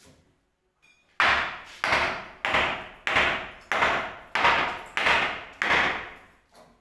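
Hammer blows, about eight in a steady rhythm a little over half a second apart, each dying away briefly before the next, with a faint last tap near the end.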